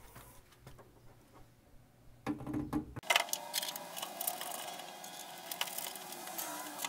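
Small clicks, taps and light metal clatter of hardware being handled as a steel mounting plate is fitted and fastened inside a CNC control cabinet, sparse at first and becoming a denser run of clicks about three seconds in.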